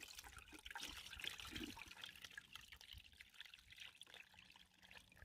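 Fermented vegetable-scrap liquid pouring and trickling through a mesh strainer into a plastic bucket, faint and splashy, heaviest in the first couple of seconds and thinning to a dribble. It is homemade fertilizer being strained off its solids.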